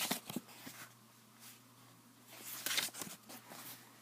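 Faint paper rustling from book pages being handled and turned, in two short bursts, one at the start and one about two and a half seconds in.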